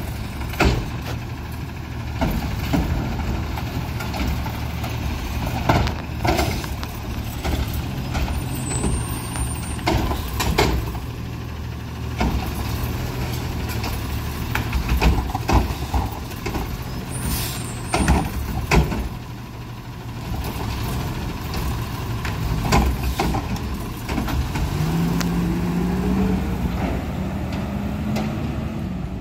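Front-loading garbage truck with a Curotto-Can automated arm emptying recycling carts: its diesel engine runs steadily under repeated clanks and bangs of carts being lifted, shaken and set down, with a couple of short air hisses. Near the end the engine revs up, rising in pitch, as the truck pulls forward.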